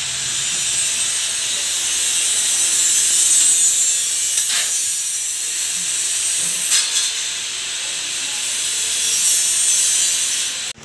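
A steady hiss, with a couple of light knocks about four and a half and seven seconds in.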